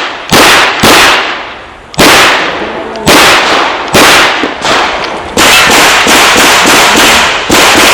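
Chiappa Rhino .38 Special revolver fired in a string of about ten shots during a timed IDPA stage. The shots come about a second apart at first, then quicken to roughly two or three a second after about five seconds. Each shot rings out with a short echo.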